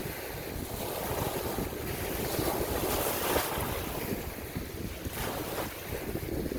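Wind blowing over the microphone with the rushing wash of sea waves; the level swells and eases unevenly.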